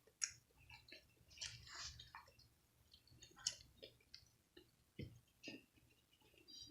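A person chewing food: faint, irregular wet smacks and small mouth clicks, with a soft low thump about five seconds in.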